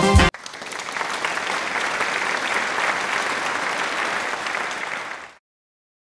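Applause, swelling up over the first second, holding steady, then cutting off abruptly a little after five seconds in.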